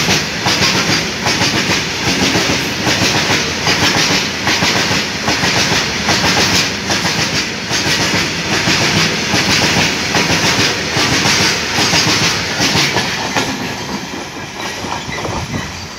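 A long freight train of covered wagons passing close by at speed, its wheels clattering rhythmically over the rail joints. The clatter fades near the end as the last wagons and the brake van go past.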